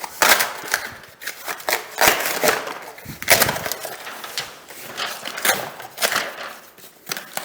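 Vinyl click-flooring planks being handled: irregular knocks, clatter and short scrapes of the planks against each other and the floor.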